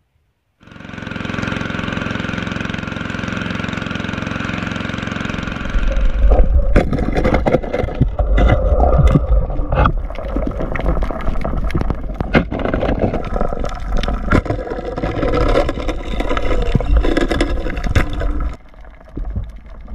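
A steady hum with a few even tones for about five seconds. It then gives way to a loud low rumble full of clicks and knocks: water noise and handling around an underwater camera.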